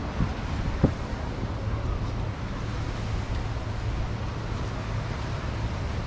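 Wind buffeting the microphone, a steady low rumbling noise, with two short thumps in the first second.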